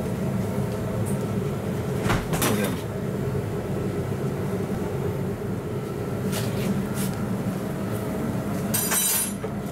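Steady low mechanical hum of kitchen machinery, broken by a few sharp knocks and clinks on a stainless steel worktop. The knocks come about two seconds in, twice more later on, and as a ringing clatter near the end.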